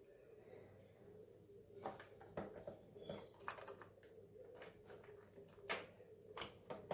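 Irregular light clicks and taps of a Stihl MS170 chainsaw's chain and bar being handled and fitted back onto the saw, starting about two seconds in.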